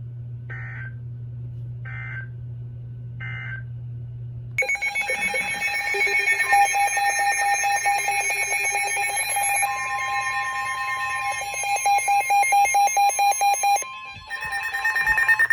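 Weather radio emergency alert signals: three short warbling data bursts (the digital end-of-message code of the flash flood warning), then a loud, rapidly pulsing electronic alert alarm with a steady tone joining about halfway, announcing the next warning.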